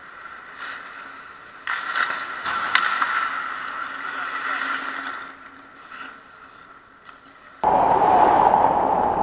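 Hockey skate blades scraping and carving on wet rink ice close by, swelling in the middle, with one sharp click just before three seconds in. Near the end the sound jumps abruptly to a louder, steady rushing noise.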